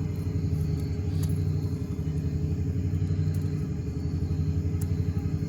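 A steady low engine rumble with a fast, even pulsing that holds at one pitch throughout.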